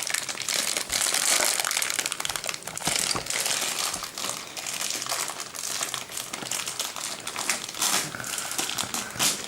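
Continuous crinkling and rustling of a Playmobil advent calendar's packaging being torn open by hand, with irregular small crackles throughout.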